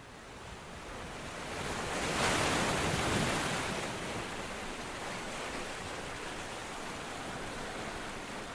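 Ocean surf washing ashore, a steady rushing hiss that swells about two seconds in and then settles.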